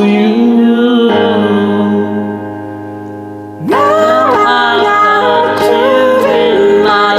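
Music: a held sung note gives way to a sustained, fading chord, and a bit over three and a half seconds in the singing comes back in with the melody over its accompaniment.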